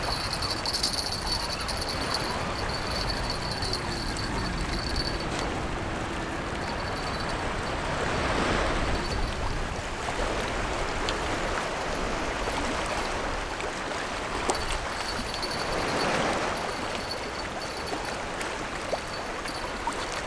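Choppy sea water washing and lapping against a concrete jetty, a steady wash with two louder surges, about eight and sixteen seconds in.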